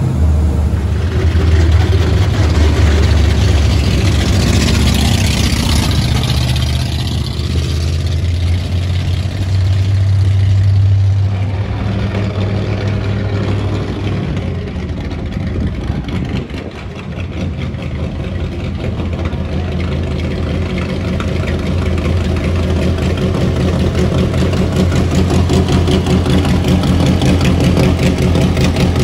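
Hot rod engines and exhaust. A deep, loud rumble for the first dozen seconds eases off, then a black 1932 Ford roadster hot rod's engine idles steadily close by, getting louder near the end.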